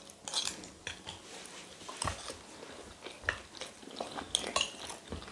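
Metal spoons scraping and clinking on plates of rice and beans, with soft chewing and mouth sounds of eating between scattered clicks.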